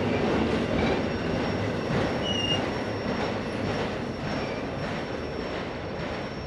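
Autorack freight cars rolling past on steel rails: a steady rumble of wheels on track, with a few brief high wheel squeals, slowly fading as the end of the train moves away.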